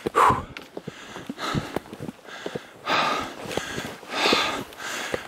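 Hard, heavy breathing of a person exerting themselves up a steep hill, a breath about every one and a half seconds, with short crunching footsteps in deep snow between the breaths.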